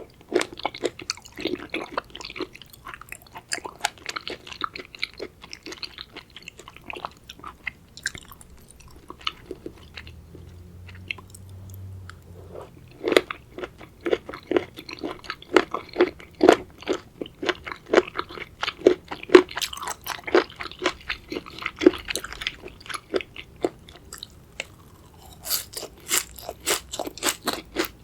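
Close-miked chewing of raw seafood: wet, crunchy bites in a steady rhythm of about two chews a second, with a couple of brief pauses.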